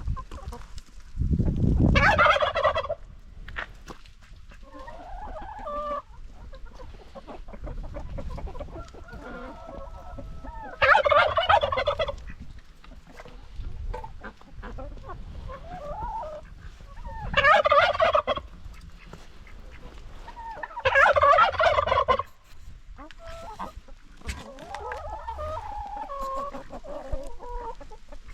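A turkey gobbling four times, each a short loud rattling call, with chickens clucking quietly in between.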